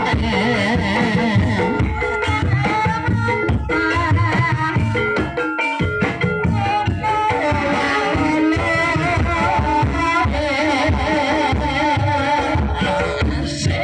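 Live Javanese ebeg dance music in campursari style: a gamelan-type ensemble with a steady drum beat, percussion and a sung or wavering melodic line.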